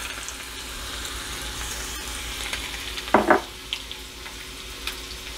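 Chopped garlic hitting hot cooking oil in a small frying pan: a sudden, loud sizzle as it goes in, settling into a steady sizzle that eases slightly in the second half. A brief squeak about three seconds in.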